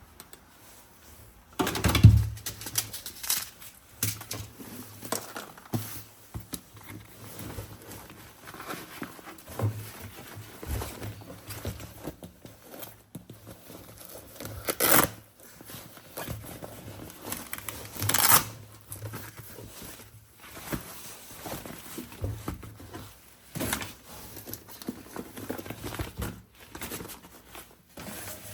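Packaging and plastic parts being handled: crinkling and rustling with scattered clicks and knocks. Louder bursts of handling come about two seconds in, about halfway through and a little later.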